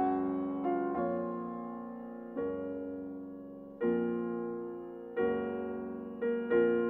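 Slow solo piano music: chords struck about every second or two and left to ring and fade.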